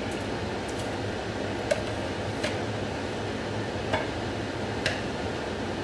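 Four light clinks of a spoon against a glass bowl as yogurt is spooned onto chicken, over a steady background hum.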